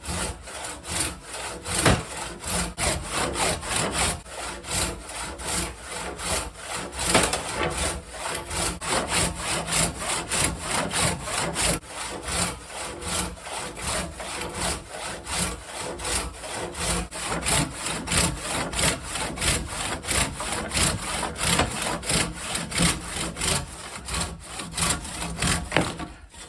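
Old-style tigersvans handsaw cutting through wood with steady, rhythmic back-and-forth strokes, its coarse teeth rasping on each stroke.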